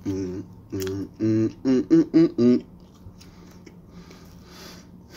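A man humming a quick string of short notes through a mouthful of pizza, followed by a quieter stretch of faint chewing and mouth noises.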